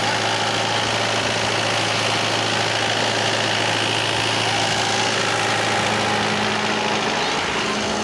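Large multi-cylinder diesel generator engine running steadily at constant speed, an even drone with no change in pitch.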